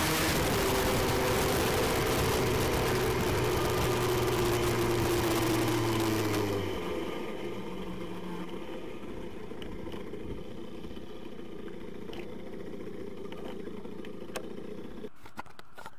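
Tuned 50 cc two-stroke moped engine (Airsal T6 cylinder, Giannelli expansion pipe) running hard at a steady high pitch under way, with wind rush. About six and a half seconds in the throttle closes and the engine drops to a quieter low run, then cuts out about fifteen seconds in.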